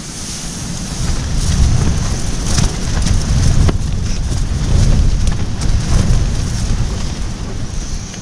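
Strong gusty wind buffeting the microphone: a loud, uneven low rumble with hiss, broken by a few sharp clicks.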